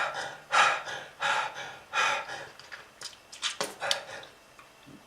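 A person hacking and gasping in a run of harsh, rasping bursts, about six over a few seconds: a smoker's cough.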